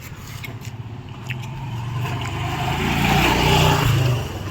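Motor vehicle engine running with road noise, growing louder to a peak a little past three seconds in, then easing off.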